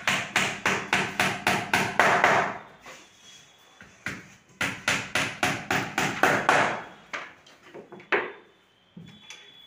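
Hammer driving nails into a plywood panel: two runs of quick blows, about four a second, with a pause of about two seconds between them, then a single blow near the end.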